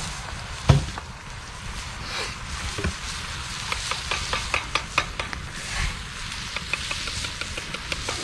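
Scrambled eggs sizzling in a frying pan while a utensil stirs and scrapes them, giving a run of quick clicks and taps. A single low thump a little under a second in is the loudest sound.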